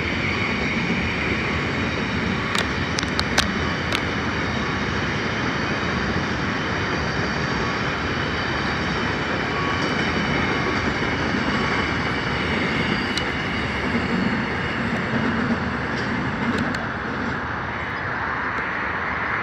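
Double-stacked container well cars rolling past: a steady rumble of steel wheels on rail, with a few sharp clicks about three seconds in.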